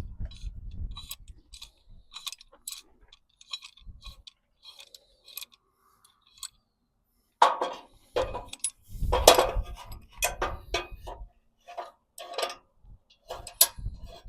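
Scattered metal clinks and knocks of steel parts and hand tools being handled and set in place, with a louder run of knocks about halfway through.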